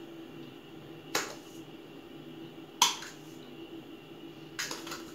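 A metal teaspoon clinking against the dishes while salt is spooned into a food processor's mixing bowl: two sharp single clinks about a second and a half apart, then a quicker cluster of light taps near the end.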